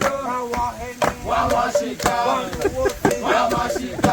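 Several voices singing a chant together, with a sharp thump about once a second.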